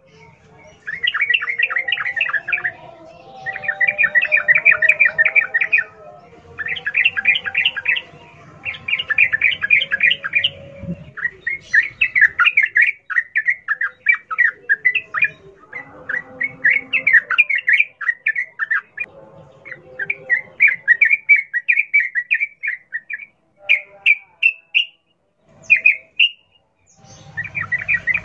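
Sooty-headed bulbul (trucukan) singing its rapid chattering 'ropel' song in wild style: fast runs of notes in phrases of about two seconds, repeated again and again with short pauses.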